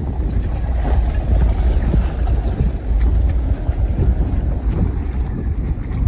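Strong gale-force wind buffeting the microphone with a heavy, unsteady rumble, over choppy water washing around a small rowboat.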